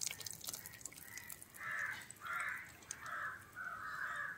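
A bird calling outdoors in a run of about five short caws, roughly two-thirds of a second apart, starting about a second and a half in.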